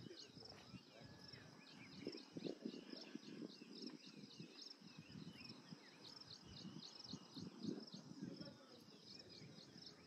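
Faint outdoor ambience of small animals chirping: a high chirp repeating about three times a second, with softer whistled calls and occasional low rustles beneath.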